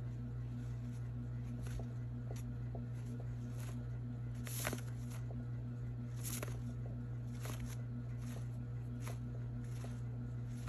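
Steady low hum throughout, with faint scattered clicks and rustles of yarn being pulled and handled with a crochet hook.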